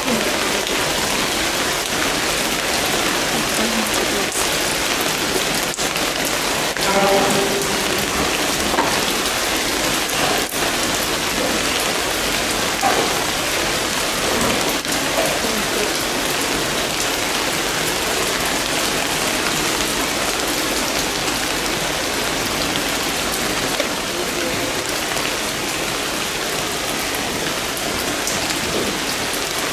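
Steady rain falling on surfaces, an even hiss.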